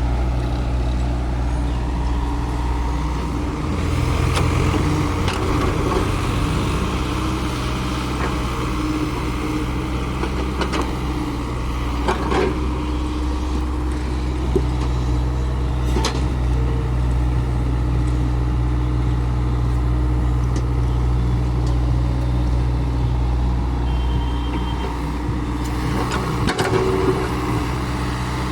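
Engine of heavy earthmoving machinery running steadily throughout, with a few short knocks and clanks scattered through it.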